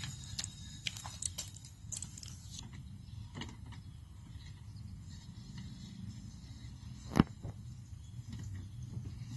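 Small irregular metal clicks and clinks of hand tools and hardware while new mower blades are bolted onto a riding mower's deck, with one sharp loud knock about seven seconds in, over a steady low rumble.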